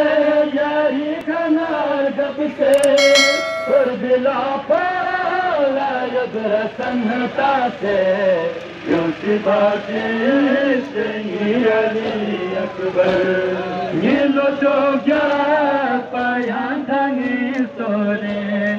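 Men chanting a Balti noha, a Shia lament, with a lead voice and the crowd of mourners. A bright bell-like ding rings briefly about three seconds in.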